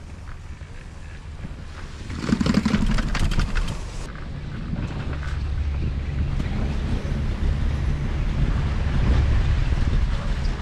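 Leitner chairlift carrying a chair past a line tower: about two seconds in, the chair's rope grip runs over the tower's sheave assembly with a rapid clatter that lasts a couple of seconds. After that, a steady low rumble from the moving rope and wind on the microphone continues as the chair nears the top station.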